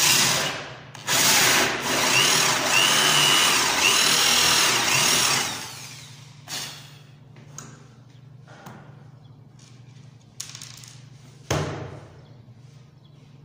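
Cordless drill boring a cup hole for a concealed hinge into a laminated wood cabinet door. A short burst comes first, then about four and a half seconds of steady cutting, with a high squeal from the bit twice partway through. After that only scattered light clicks and one sharp knock near the end.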